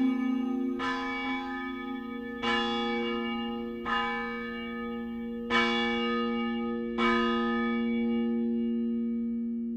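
A church bell tolling slowly: five strikes about a second and a half apart, each ringing on into the next, the last one left to die away.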